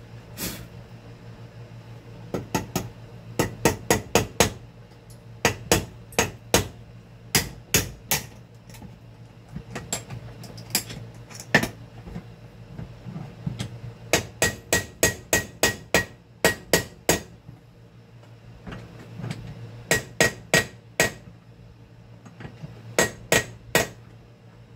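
Small hammer tapping a pin into the drilled motor shaft of an electric fan: sharp metal-on-metal taps in quick runs of several blows, with short pauses between runs.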